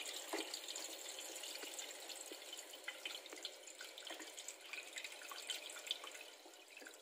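Tap water running from a kitchen faucet into a partly filled stainless steel pot with raw chicken leg quarters in it: a steady splashing stream, fading away right at the end.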